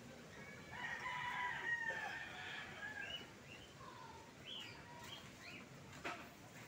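A rooster crowing once in the background, one long call of about two seconds, followed by a few short calls.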